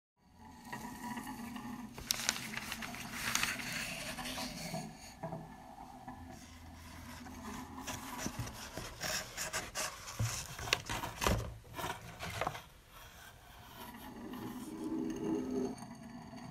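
Paper and cardboard rubbing and scraping, with scattered sharp clicks and taps, as a sheet of paper and a cardboard box are handled.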